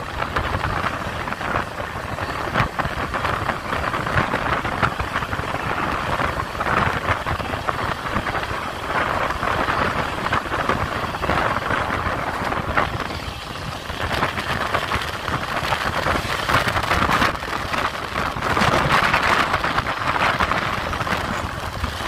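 Passenger train running, heard from on board: a steady rush of wheel and track noise thick with small clicks and knocks, swelling louder a few times.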